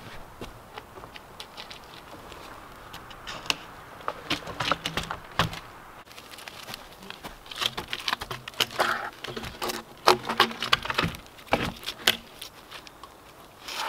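Dry twigs and leaf litter crackling and snapping under footsteps, in irregular clusters of sharp cracks with short quieter gaps.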